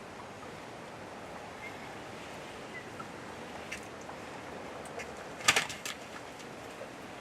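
Quiet outdoor background with faint short bird chirps, then a quick cluster of sharp clicks or knocks about five and a half seconds in.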